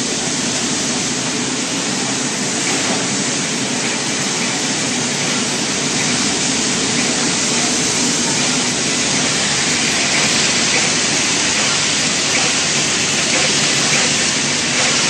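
Running machinery: a steady, even, hiss-like noise with no clear rhythm.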